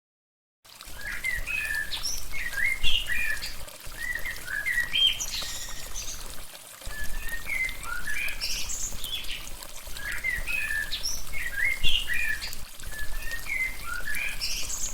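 Birds chirping and singing in quick, short rising and falling calls over a low steady rumble. The sound starts abruptly about half a second in, and the same passage of calls repeats about seven seconds later, like a looped recording.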